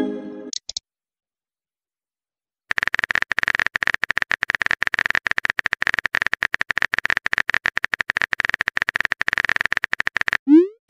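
Texting-app sound effects: a short message chime fading out, a pause, then about eight seconds of fast simulated keyboard typing clicks, ending with a quick rising swoosh and chime as a new message pops up.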